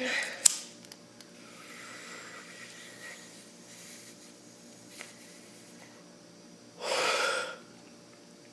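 A person with a harsh choking cough, breathing with a wheeze: a short harsh burst at the start, a drawn-out wheezy breath, and another short harsh burst about seven seconds in.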